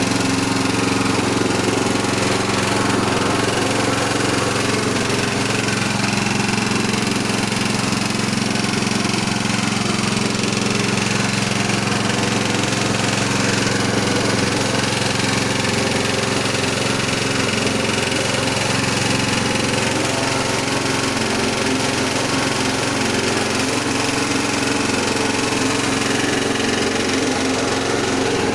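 Coconut milk press machine running steadily, its motor giving an even, unchanging hum with mechanical noise over it.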